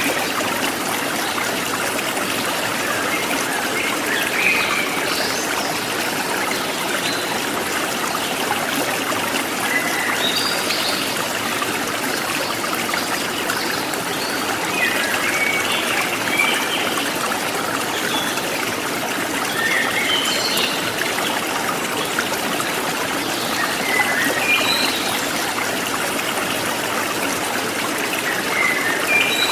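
Rainwater flowing steadily in a continuous trickling rush, with short high chirps scattered every few seconds.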